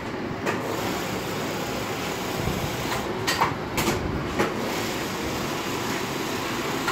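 Steady room noise with a few light clicks and knocks scattered through it.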